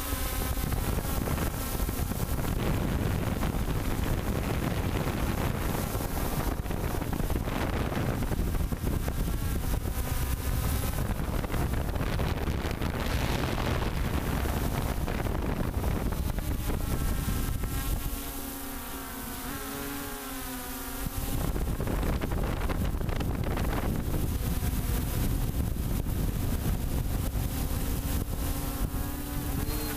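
Multicopter's electric motors and propellers whining, several tones whose pitch shifts up and down, under heavy wind noise on the microphone. The wind noise drops away for a few seconds past the middle, leaving the motor whine clearer.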